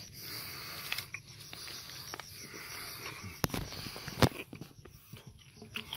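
Footsteps and rustling from someone walking up a dirt footpath through brush, with scattered sharp knocks. The loudest knock comes a little past four seconds in.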